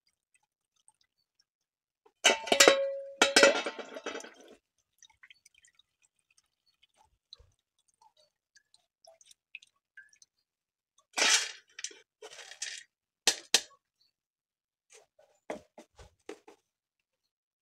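Metal pot and strainer clinking and clattering while soaked juniper berries are strained, with a loud ringing clink about two seconds in and scattered sharp knocks later.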